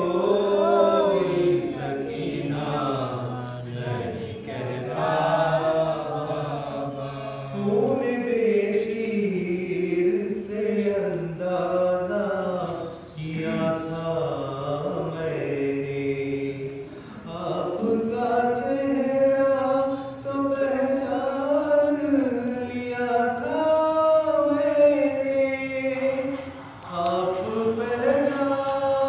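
Unaccompanied Urdu noha, a Shia lament, sung by a man into a microphone, with other voices chanting along in long held notes.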